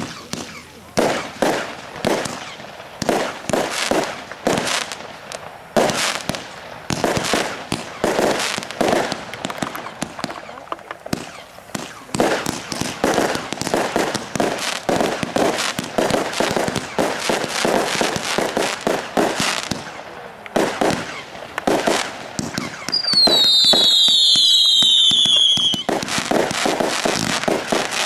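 An 88-shot consumer firework battery (cake) firing its shots in quick succession, each a sharp launch bang with crackling bursts. About 23 seconds in, several whistling shots sound together, falling in pitch for about three seconds.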